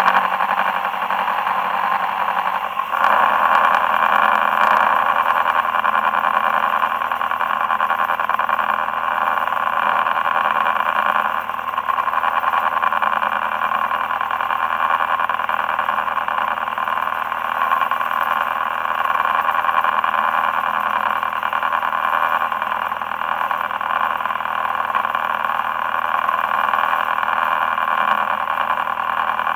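Boat engine running steadily under way at trolling speed, with the rush of the wake behind the hull; its note shifts slightly about three seconds in.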